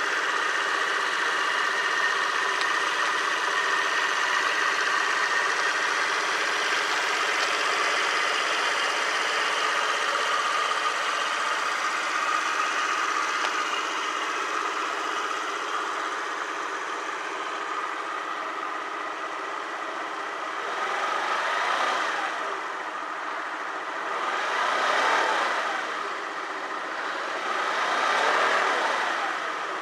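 Honda Dio 50cc scooter engine idling steadily. In the last third it is revved three times, each rev rising and falling back to idle.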